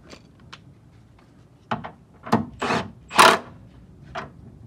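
Metal hardware and tools being handled while a bolt is fitted through a car's lower control arm mount: a few sharp clicks, then short scraping, rubbing bursts, the loudest a little past three seconds in.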